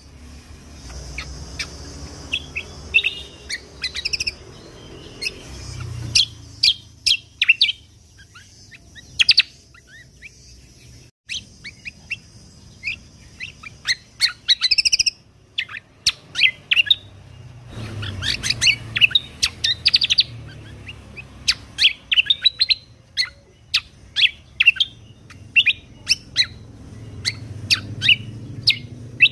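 Cucak kombo (kecial kombok) songbird singing in quick bursts of sharp, high chirps and rapid trills, broken by short pauses, over a faint low hum.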